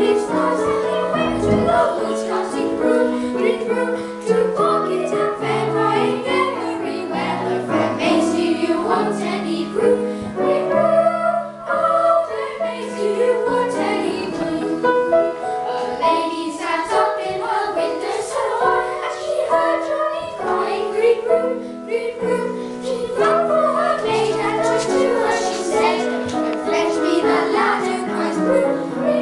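Children's choir singing together, several young voices carrying a melody in continuous phrases.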